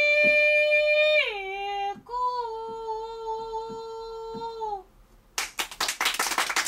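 A high female voice sings long, level held notes in Peking opera style. One note drops to a lower pitch about a second in, and a second long note ends with a downward slide near 5 s. About five and a half seconds in, a few people start clapping.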